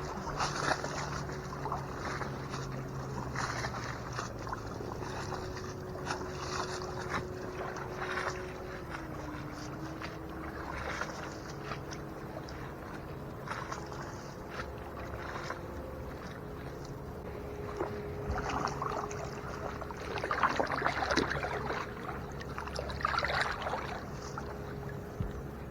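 Water splashing and lapping in irregular bursts, over the steady drone of a distant motorboat engine whose pitch dips slightly about nine seconds in.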